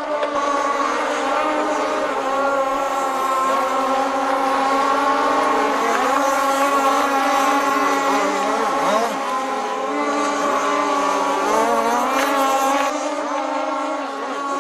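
Radio-controlled model boat motors running, several pitches at once, each rising and falling as the boats are throttled up and down.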